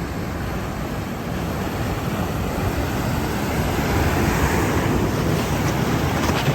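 Ocean surf from a typhoon swell, a set wave breaking and washing in, swelling louder about four seconds in, with wind rumbling on the microphone.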